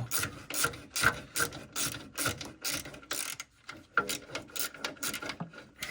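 Hand ratchet wrench clicking in quick repeated strokes, about three or four clicks a second with a short break a little past halfway, as bolts are run up into riv nuts.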